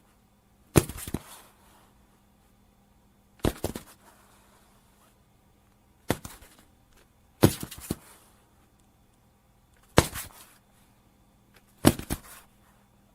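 Body-fall sound effects: six separate falls, a few seconds apart, each a sharp heavy impact followed by a short run of smaller knocks and scuffs as the body settles.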